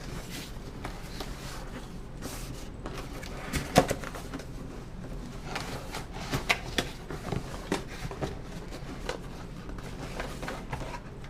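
Packaging of a boxed RC truck being handled: scattered clicks, knocks and rustles of plastic and cardboard, the sharpest knock about four seconds in.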